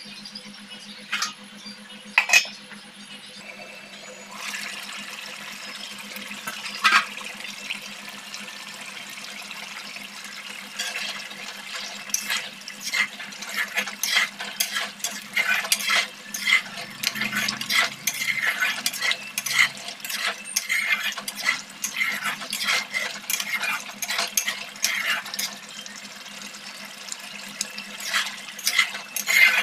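Chicken curry bubbling and spitting in a wok, with a dense run of crackling pops through the middle. A couple of sharp clinks of a metal spoon against the pan come in the first few seconds.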